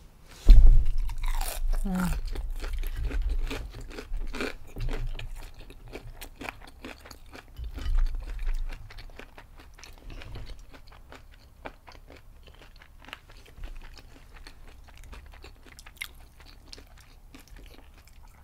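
Close-miked biting and chewing of breaded fried shrimp. A loud crunchy bite comes about half a second in, followed by crackly chewing that is heaviest over the first few seconds, with another burst near eight seconds. After about ten seconds it thins to soft, sparse mouth clicks.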